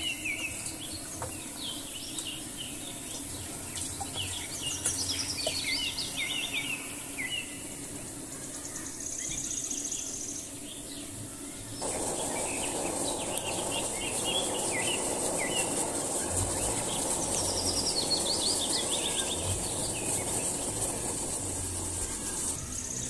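Small birds chirping and singing, with quick runs of descending notes that come round again. About halfway in, a louder, even hiss sets in underneath and holds.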